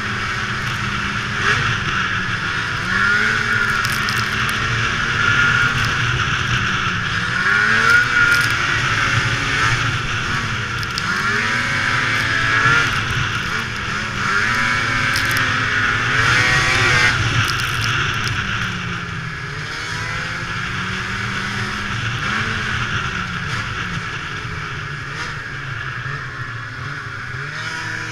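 2002 Ski-Doo MX Z two-stroke snowmobile engine running at trail speed, its pitch rising and falling every few seconds as the throttle is opened and eased, over a steady rush of track and wind noise.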